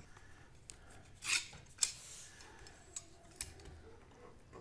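Combination square being reassembled: its steel rule slides into the head with a short metal scrape about a second in, followed by a few light metal clicks.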